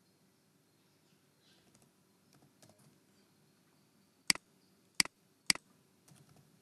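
Computer keyboard and mouse in use: a few faint keystrokes, then three loud sharp clicks a little past four seconds in, about half a second apart, as a new cell is clicked into and typing starts.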